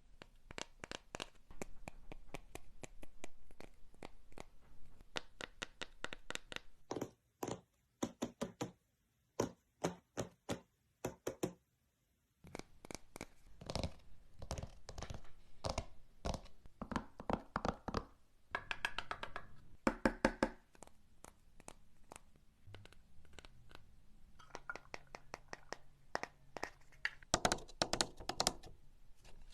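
A rapid, irregular series of sharp taps, knocks and clicks, with a few short stretches of silence in the middle.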